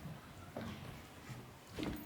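Faint room noise with a couple of soft knocks, about half a second in and near the end.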